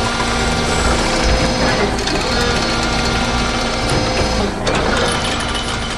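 Steady mechanical whirring and clattering of a construction machine's moving arm, a cartoon sound effect over a low rumble, dipping briefly near the end.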